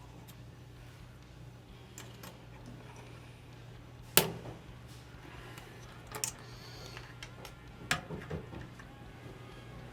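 Scattered sharp clicks and light metallic taps of small rifle parts and tools being handled during a drop-in trigger install, the loudest a single sharp click about four seconds in, over a steady low hum.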